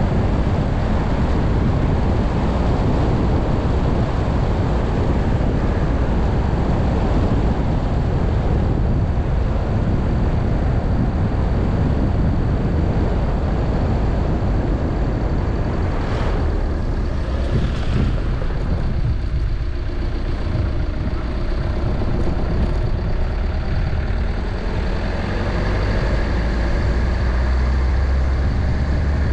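Car driving along a road: a steady engine and tyre rumble, with two brief hisses about halfway through.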